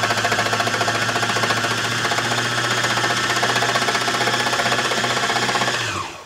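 Baby Lock Embellisher needle-felting machine running at a steady fast speed, its felting needles punching rapidly up and down through trim and felt with no thread. Near the end it slows with a falling pitch and stops.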